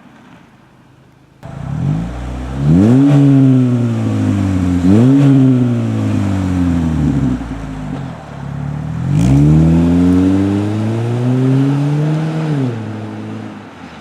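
Chevy HHR fitted with a GM Performance/Borla exhaust system, its engine revving. About a second and a half in, the pitch climbs quickly and then sinks back, twice, then climbs more slowly for a few seconds and drops away near the end.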